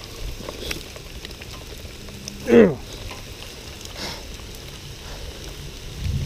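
Steady hiss of heavy rain falling, with a man's short exclamation falling in pitch about two and a half seconds in and a low rumble near the end.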